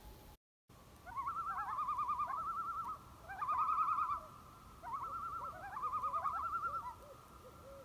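A bird's fast-wavering, trilled calls: four phrases of about a second each, with a few lower rising notes between them.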